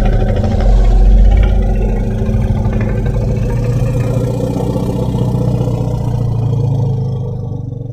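Giganotosaurus creature sound effect: a deep, rough, rumbling growl held for several seconds, loudest about a second in, fading out at the end.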